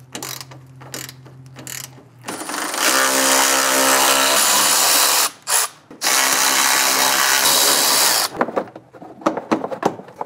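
A hand ratchet clicks a few times. Then a Milwaukee cordless electric ratchet runs in two long steady spins of about three and two seconds, with a short blip between, backing out the 10 mm nuts that hold a truck's fan shroud. Near the end comes irregular clattering as the plastic fan shroud is worked loose and lifted.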